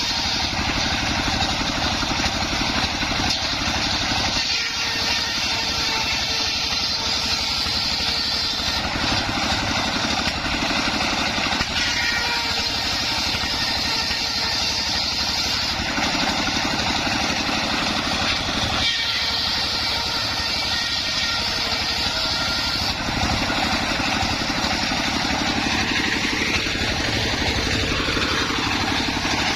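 Engine of a homemade circular sawmill rig running steadily. Near the end a tone rises and falls once.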